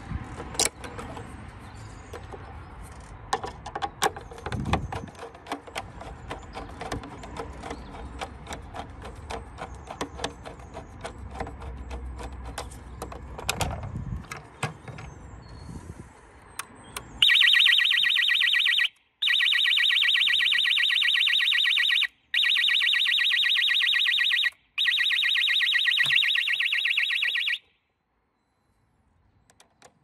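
Screwdriver and handling clicks on an external burglar-alarm bell box, then its siren sounds: a loud, high, rapidly pulsing tone for about ten seconds, broken by three brief gaps, that cuts off suddenly.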